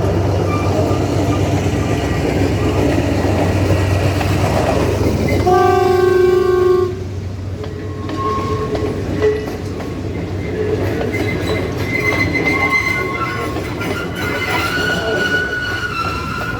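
Sri Lanka Railways W3 class diesel locomotive running with a steady low drone, then one horn blast of about a second and a half, some five and a half seconds in. After the horn it carries on more quietly, with train running noise.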